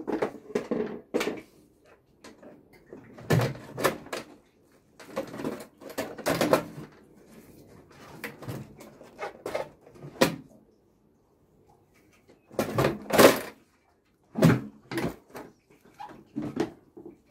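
Yamaha TDM 850's steel fuel tank being lowered and seated back onto the frame over the plastic airbox: irregular knocks, clunks and scrapes of tank, rubber mounts and plastic parts, the loudest clunk about 13 seconds in.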